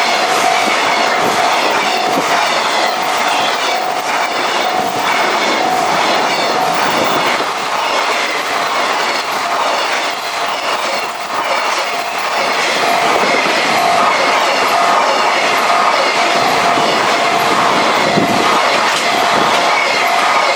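Container freight wagons rolling past at a level crossing, their wheels clattering rhythmically over the rail joints. A Japanese level-crossing alarm rings steadily throughout.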